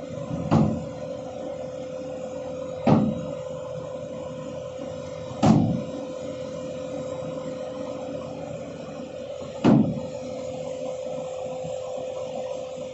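Excavator running with a steady hum, broken by four heavy knocks spaced a few seconds apart.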